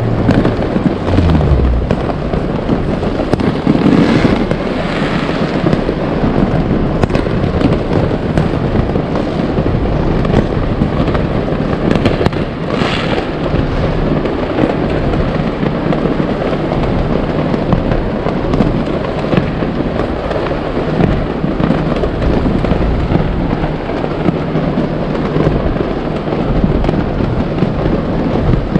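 Many fireworks going off together: a dense, continuous barrage of bangs and crackling with no pause.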